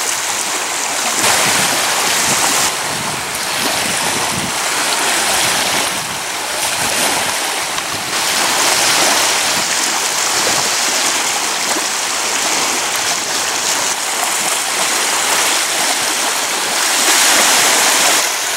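Small lake waves washing and lapping at the shoreline, a steady rush of water.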